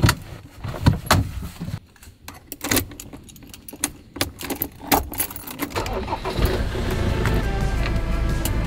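A string of sharp clicks and knocks with keys jangling in a Land Rover Defender 4x4, then the engine starts about six and a half seconds in and keeps running steadily.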